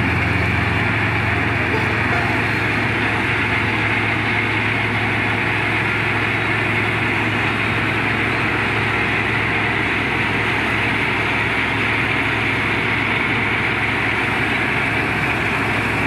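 Combine harvester running steadily while cutting wheat: a steady low engine hum under an even rushing noise from the machine at work.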